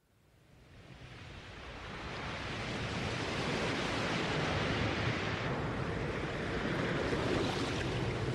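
Rough sea surf and breaking waves, a steady rushing hiss. It fades in from silence over the first two or three seconds.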